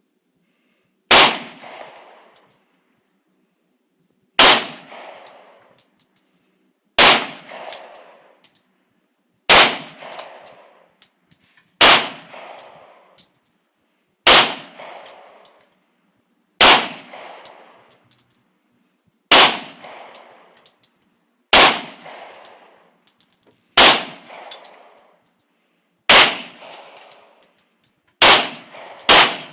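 Gunshots from a firearm being fired at a target, about thirteen single shots at a slow, even pace of roughly one every two to two and a half seconds, with two quicker shots near the end. Each shot rings out with an echoing tail.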